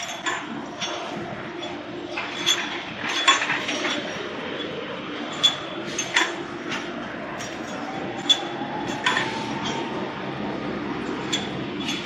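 Double disc grinding machine for motorcycle connecting rods running with a steady hum, over which steel connecting rods clink sharply at irregular intervals as they are fed along the machine's rails.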